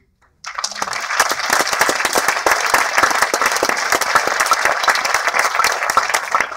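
Audience applauding: a dense mass of hand claps that starts abruptly about half a second in and keeps going at full strength.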